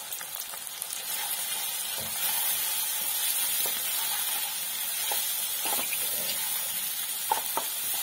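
Chopped onions, tomatoes and ginger-garlic paste sizzling in hot oil in a pan while a spatula stirs them, with a few short scrapes and knocks of the spatula against the pan. The sizzle grows a little louder about a second in as the paste is mixed in.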